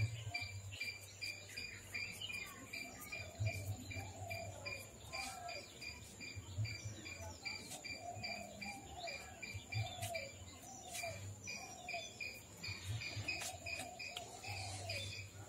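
Insects chirping: a steady high trill with a rapid, regular chirp above it, and short falling calls repeating lower down. Intermittent low rumbles come and go.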